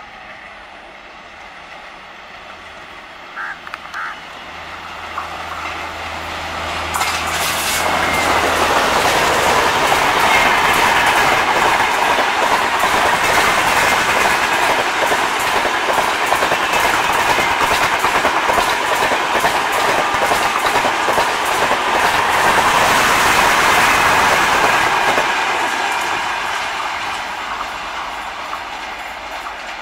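A diesel locomotive's engine hums as it approaches, then an express train's coaches pass at speed with a fast, rhythmic clatter of wheels over rail joints. The sound builds to its loudest in the middle and fades as the train draws away.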